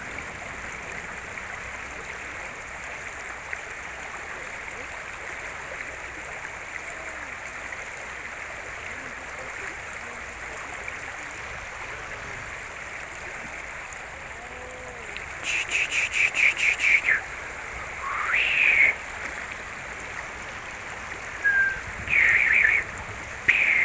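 River water running steadily. About two thirds of the way in, a quick run of short high chirps is heard, followed by a few brief high calls near the end.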